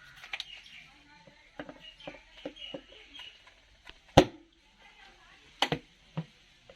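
A series of sharp clicks and knocks, as of objects being handled and set down, with two loud knocks about four and five and a half seconds in.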